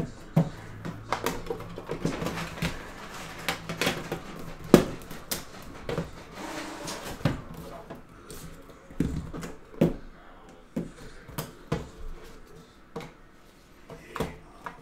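Hands handling a metal trading-card tin and the cardboard box inside it: irregular light knocks, taps and short scrapes, with the loudest knock about five seconds in.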